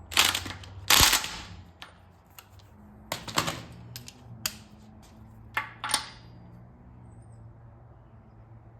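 Impact wrench fired in two short bursts, near the start and about a second in, tightening the pinion nut on a Sterling 10.5 rear axle to bring up the pinion bearing preload. This is followed by a series of sharp metallic clicks and knocks from tools being handled on the axle.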